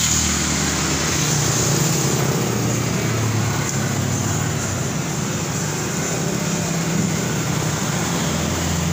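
An engine running steadily in the background: a low humming drone that wavers slightly in pitch under a broad, even hiss.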